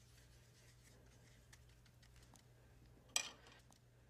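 Faint soft scratching of a small paintbrush swirling thinned oil paint on a paper palette pad, over a low steady hum. A single sharp short sound comes about three seconds in.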